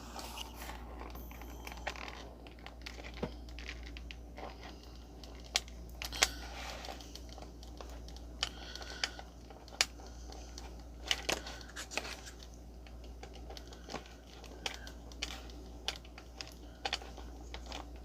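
Hands handling plastic toy packaging, with scattered sharp clicks and crinkles as the screw holding a diecast model car to its package base is removed and the car is freed. A steady low hum runs underneath.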